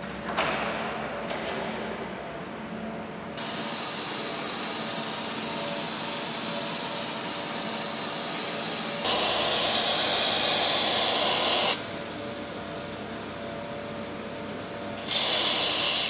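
Aerosol air-conditioner cleaning spray hissing into the unit's evaporator fins in bursts: a steady hiss, then a louder blast of about three seconds, and another short blast near the end. A faint steady hum runs underneath, and there are a couple of clicks in the first two seconds.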